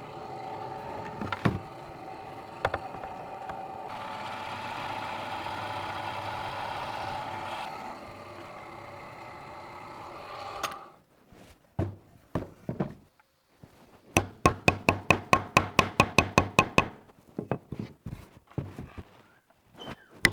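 A small motor runs steadily for about ten seconds and stops. Then comes a fast, even run of sharp knocks, about seven a second, for some three seconds, and a few scattered knocks after it.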